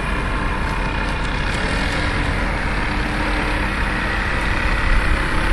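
Two Saito 82 four-stroke glow engines of a radio-controlled Canadair CL-415 model seaplane running steadily as it taxis on water. The right engine is set about 500 rpm faster than the left.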